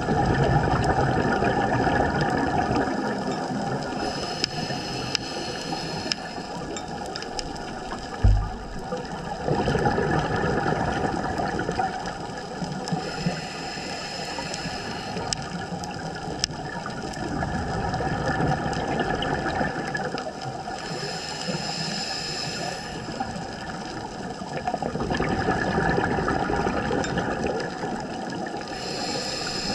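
Scuba diver breathing through a regulator underwater, about one breath every eight seconds: a hissing inhale followed by a bubbling exhale. One low thump comes a little past eight seconds in.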